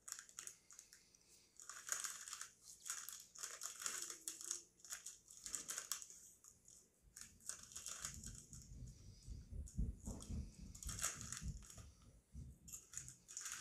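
Crinkling of a crunchy-snack bag being handled, then from about halfway through irregular crunching, typical of Cheetos being chewed.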